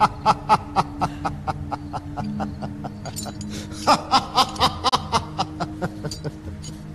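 A man laughing in long, evenly paced ha-ha bursts, about four a second. There are two bouts, one at the start and a second, louder one from about four seconds in that trails off near the end.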